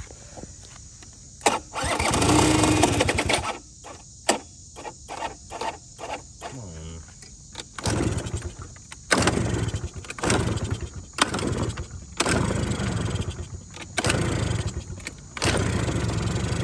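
Honda Spree scooter's small two-stroke engine being cranked in repeated bursts, its cylinder flooded with two-stroke oil. Near the end it catches and keeps running.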